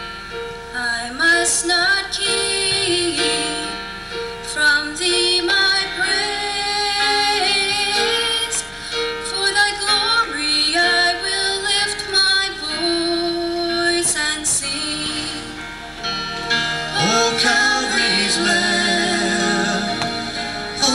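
Church choir singing, with the women's voices most prominent.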